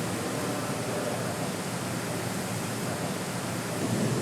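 Steady, even hiss of air noise in a robotic car-body paint shop.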